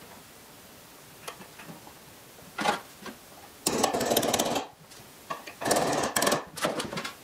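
Hammer tapping a punch to drive a new rear sight sideways into the groove of a Sig P320 pistol slide. A couple of single taps are followed by two quick runs of rapid, light taps about four and six seconds in.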